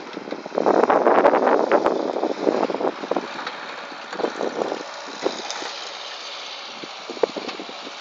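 Wind buffeting the microphone in irregular gusts with occasional pops, strongest in the first three seconds and easing to a steadier hiss after that.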